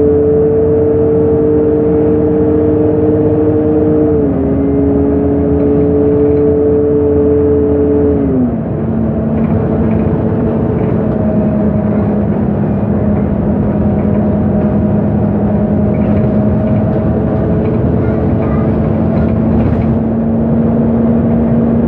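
MAN NG273 T4 articulated bus's LPG engine and drivetrain, heard from inside the bus while pulling away. The whine rises slowly, steps down a little about four seconds in as the gearbox shifts up, then drops again just past eight seconds and settles into a steady lower whine over road noise.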